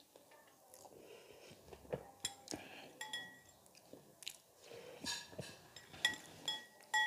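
Close-miked chewing of pani puri, with soft crunches and wet mouth sounds. A metal spoon clinks against a glass bowl several times in the second half, and each clink rings briefly.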